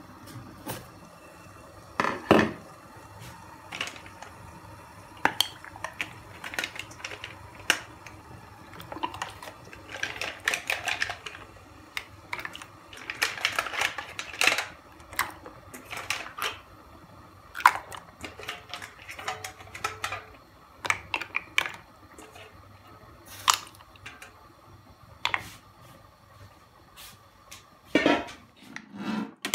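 Covered stainless steel cooking pot on the stove with mussels steaming inside: irregular clicking, ticking and rattling of the glass lid, with a few louder knocks, over a faint steady hum.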